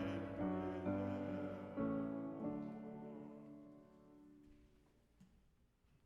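Piano playing a few slow closing chords, the last one ringing out and fading away about four seconds in.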